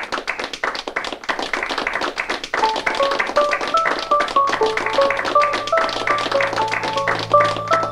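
Audience applauding at the end of a talk. About two and a half seconds in, outro music fades in under the clapping: a simple melody of short notes over a low drone.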